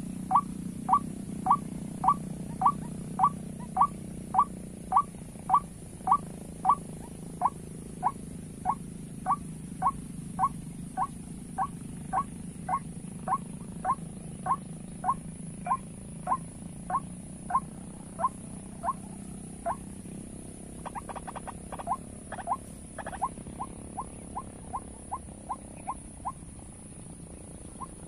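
White-breasted waterhen call: short rising notes repeated evenly about twice a second. About two-thirds of the way through comes a brief cluster of clicks, then the notes run quicker and softer.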